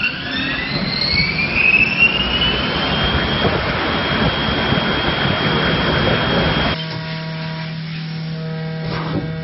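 Haas SL-40 CNC lathe spindle winding up to speed with a rising whine that levels off into a steady high whine over a rushing noise. About seven seconds in it cuts off abruptly, leaving a steady electrical hum.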